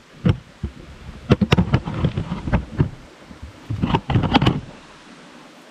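Hiking boots stepping and scuffing on stony trail: irregular knocks and scrapes in uneven clusters.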